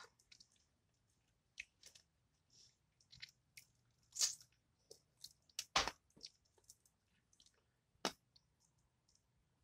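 Scattered crisp crunches and crackles of breaded fried fish being picked apart and eaten, close to the microphone, with the sharpest crack a little past halfway.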